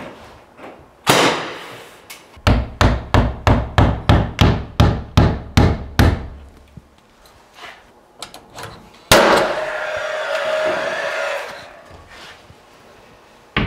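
Hammer nailing a prehung door's wooden jamb into its opening to tack it in place: one sharp blow, then a quick run of about a dozen strikes at roughly three a second. About nine seconds in, a loud knock is followed by a few seconds of scraping noise.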